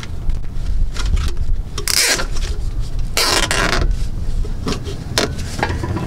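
Handling noise of a parking brake cable being worked along a car's underbody: two short scrapes, one about two seconds in and a longer one about three seconds in, over a steady low rumble.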